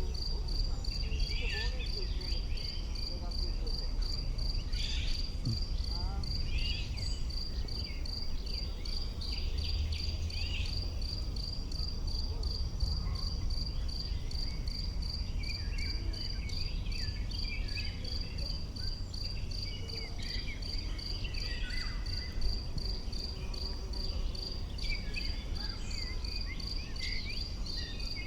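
A cricket chirping steadily at a high pitch, about two chirps a second, over scattered short bird chirps and a steady low rumble.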